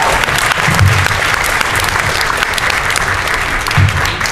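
Audience applauding: dense, steady clapping, with a couple of brief low thumps, about a second in and near the end.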